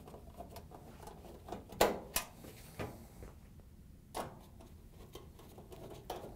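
Nut driver seating on and turning hex-head screws into a dryer's sheet-metal control panel support frame: a few sharp metal clicks and taps, the loudest around two seconds in and again past four seconds.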